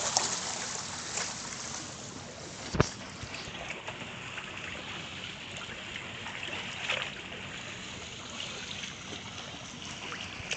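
Shallow floodwater running and sloshing across a paved street after a heavy downpour, a steady rushing noise. A single sharp knock about three seconds in.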